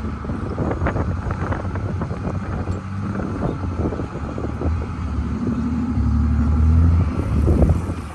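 Car driving on a snowy road, heard from inside the cabin: a steady low road and engine rumble with frequent short knocks and bumps. The engine note gets louder for about two seconds near the end.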